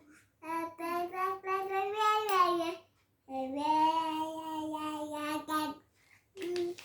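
A young child singing solo: two sustained phrases with a short break between them, then one short note near the end.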